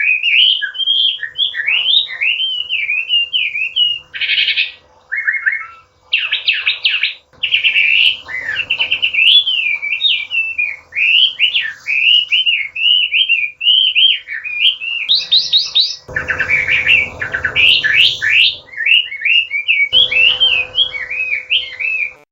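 Chinese hwamei singing a long, varied song: loud, clear whistled phrases sliding up and down, broken by fast rattling trills, with hardly a pause. A faint steady hum runs underneath.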